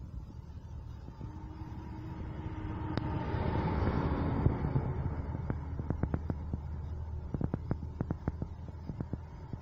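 A diesel semi-truck pulling an end-dump trailer passes close by. Its engine and tyre noise swells to a peak about four seconds in, then fades as it moves off. A string of sharp crackles follows in the second half.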